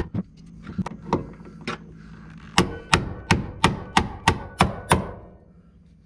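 Hammer blows on a hand tool seated in a stuck door-hinge screw of a 1974 VW Super Beetle: a few light taps, then a run of about eight sharp metal strikes, about three a second, trying to break the seized screw loose.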